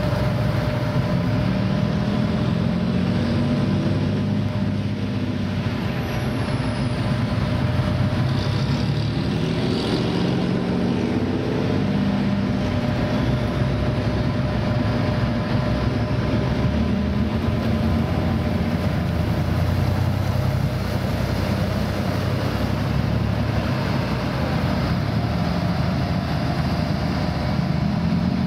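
Heavy diesel engine of a tracked armoured vehicle running continuously, its note rising and falling several times over a steady whine.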